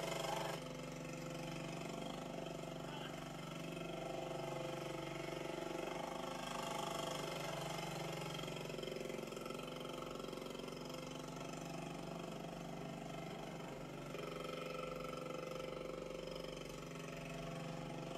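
Small ATV engines, a child's Suzuki quad and a three-wheeler, running steadily at low revs, heard off a television's speaker.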